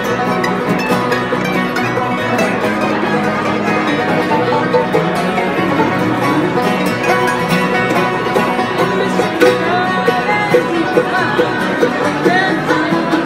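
Live bluegrass music: a mandolin and banjos picked together, playing continuously.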